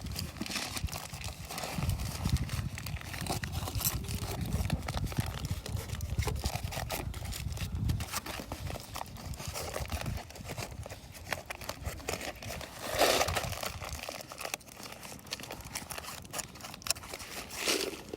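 Wood campfire crackling with scattered pops, mixed with handling noises. A low rumble stops about three-quarters of the way through, and two louder handling noises come near the end.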